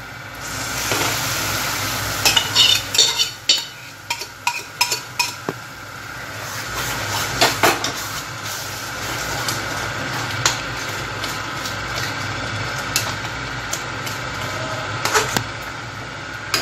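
Ground mustard-greens saag going into hot masala paste in an aluminium kadhai and sizzling, while a spoon knocks and scrapes against the metal pot as it is stirred in: a quick run of clinks early on, a louder cluster of knocks a few seconds later, then occasional single clinks over a steady sizzle.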